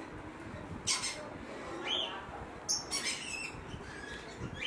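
Young parrot chicks giving short, high-pitched calls, about three bursts a second or so apart.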